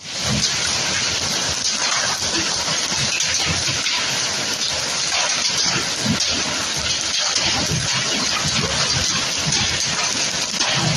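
Heavy hailstorm: large hailstones pelting down in a dense, steady clatter of many small knocks.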